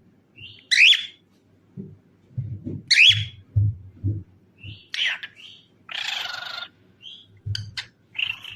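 Cockatiel whistling and calling: two loud rising whistles in the first three seconds, a few shorter whistles, then a harsh screech at about six seconds and quick chirps near the end.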